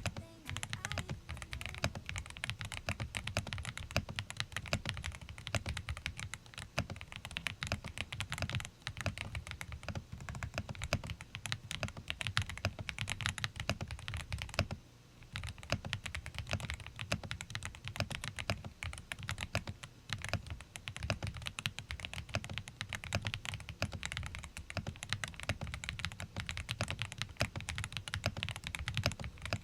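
Typing on a Yunzii B68 mechanical keyboard with Yunzii cocoa cream switches and PBT keycaps: rapid, continuous keystrokes with a creamy sound, with a short pause about halfway through.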